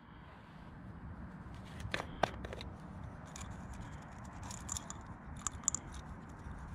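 Small sharp clicks and scrapes of a plastic screw-top waterproof match case being unscrewed and a wooden match drawn out from among the matches, with a cluster of ticks in the second half.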